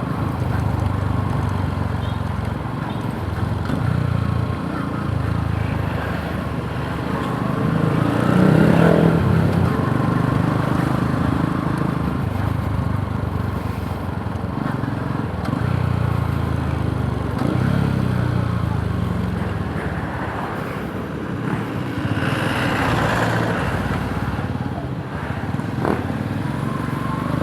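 Yamaha YTX 125 cafe racer's single-cylinder four-stroke engine running on the move, its pitch rising and falling with the throttle, loudest about a third of the way in.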